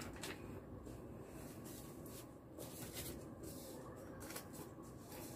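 Faint rustling of paper banknotes and red paper envelopes being handled, with several brief soft crinkles spread through.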